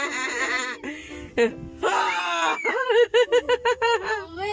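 A girl's voice squealing, with a high cry that rises and falls about two seconds in, then a quick run of short laughs near the end.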